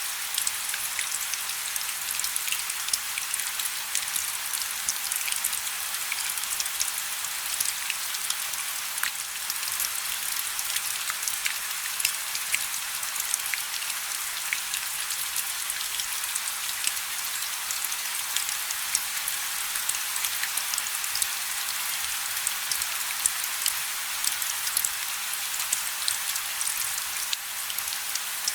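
Steady rain: a dense hiss of falling rain with many small, distinct drop ticks pattering on a surface.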